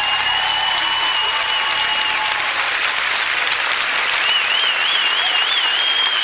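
Audience applauding steadily as a dance performance ends. Someone whistles high over it: one long held whistle that stops about two seconds in, and a warbling one near the end.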